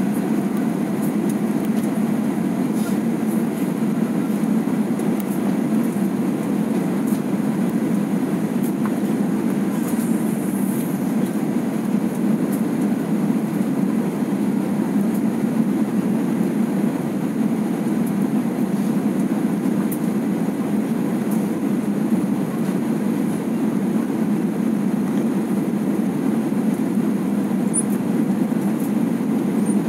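Steady cabin noise inside an Airbus A320 airliner in flight: a constant low rumble of the engines and airflow around the fuselage.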